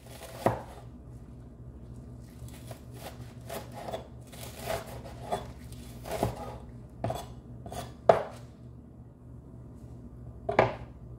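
Stainless steel meat cleaver chopping green onions on a wooden cutting board: irregular knocks of the blade striking the board, some soft and a few sharp and loud, over a faint low steady hum.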